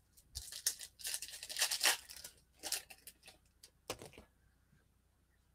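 Foil wrapper of a basketball trading-card pack being torn open and crinkled by hand. There is a run of rustling tears in the first two seconds, then a few scattered crinkles and clicks.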